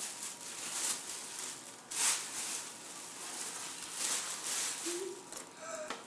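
Tissue paper rustling and crinkling as it is pulled out of paper gift bags, in several bursts.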